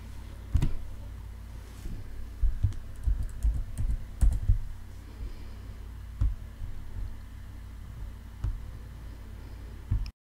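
Computer mouse and keyboard clicks: scattered, irregular taps over a low steady hum.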